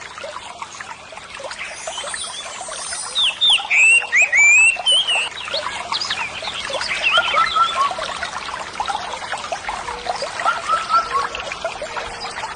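Water trickling and pouring, a dense run of quick bubbly plinks, loudest around four seconds in.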